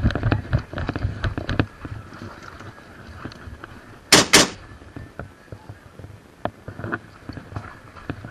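Airsoft gunfire: a quick run of sharp shots in the first second and a half, then two loud, sharp cracks in quick succession about four seconds in, with scattered knocks and clatter around them.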